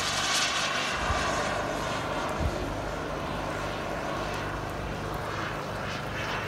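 Radio-controlled model jet flying overhead, its engine giving a steady rushing whine, over rain. Two short soft knocks come about one and two and a half seconds in.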